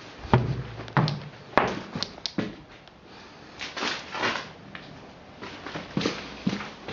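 Irregular knocks and thuds, several in the first few seconds, with a short rustling scrape in the middle and a few lighter clicks near the end.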